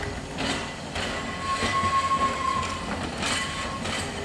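Manx Electric Railway crossbench tramcar and four-wheel wagon rolling slowly over pointwork, the wheels clicking over rail joints and crossings. A steady high squeal from the wheels on the curve starts about a second in and lasts over a second, then comes again briefly near the end.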